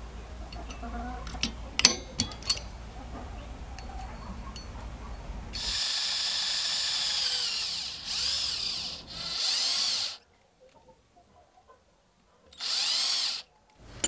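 A small electric drill bores a hole through a brass spoon blank in three bursts, the longest about three seconds. Its whine dips and rises in pitch as it runs. Earlier there are a few sharp clicks as a pointed marking tool works the brass.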